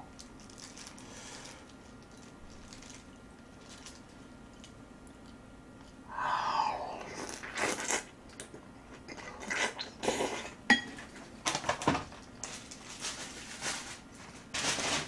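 Chewing and biting mouthfuls of a braised short-rib and aged-kimchi meal. It is quiet for about six seconds, then comes a string of irregular chewing sounds with sudden louder bursts.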